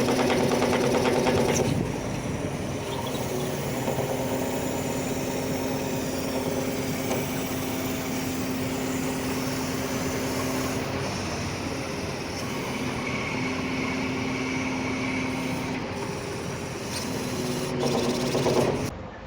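Hydraulic piston pump running under load together with the machine's engine: a steady mechanical drone and whine, louder for the first two seconds and again shortly before the end. This abnormal noise is the one the mechanic puts down to a faulty hydraulic pump.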